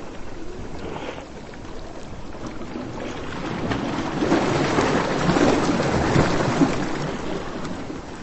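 Surf on a beach: a steady wash of waves, with one wave swelling up through the middle and easing off near the end.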